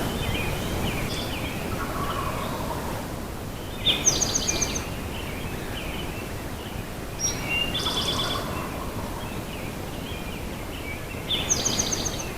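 Songbirds singing in the dawn chorus: one bird repeats a short, high, rapid phrase about three times, roughly every three and a half seconds, among scattered chirps over a steady background hiss.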